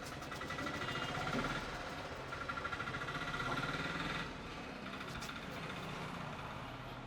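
Road traffic, with a motor vehicle's engine running close by until it drops away about four seconds in, leaving the lower traffic rumble.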